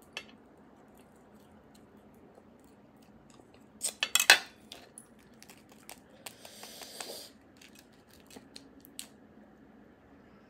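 Roasted beef marrow bone being worked with a utensil and eaten: sharp clicks and scrapes of the utensil against the bone about four seconds in, then a short hissing slurp as the marrow is sucked out of the bone, with small wet mouth clicks afterwards.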